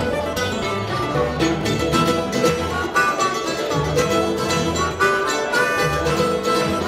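Live acoustic band music: an upright bass playing steady bass notes under plucked guitar-like strings, with an even beat.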